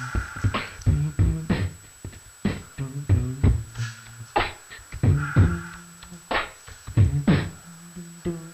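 Background music: an electronic beat with sharp, regular drum hits over a bass line.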